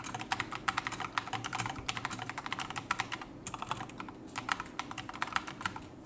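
Fast, continuous typing on a mechanical keyboard with Akko CS Matcha Green switches and SA-profile doubleshot PBT keycaps: rapid key clacks in quick runs, with short pauses about three and four seconds in, stopping just before the end.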